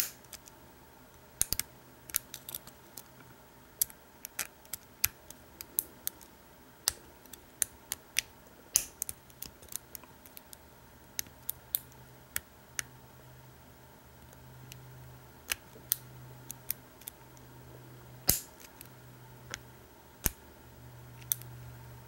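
Steel lock pick clicking and scraping inside the keyway of an American Lock 1100 padlock held under tension in a false set: irregular sharp ticks, some in quick clusters of two or three. Many of them come from the pick catching the warding rather than the pins.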